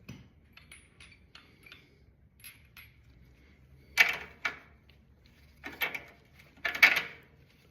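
Metal hand tools and parts clinking: a few light ticks, then several sharp clanks of metal on metal about four, six and seven seconds in.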